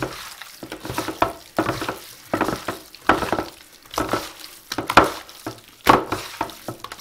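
Gloved hands squishing and turning raw chicken breast fillets in an oily spice marinade in a baking tray: repeated wet squelching strokes, about one to two a second.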